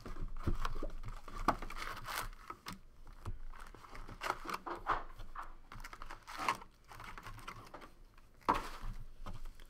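Foil-wrapped baseball card packs crinkling and clattering as they are taken out of a cardboard hobby box and stacked on a table, in irregular rustles and taps, with a louder rustle near the end.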